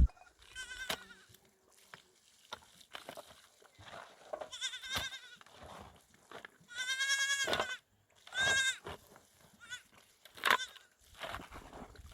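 Goats bleating: three wavering calls, the longest about seven seconds in, with a few scattered knocks and clicks between them.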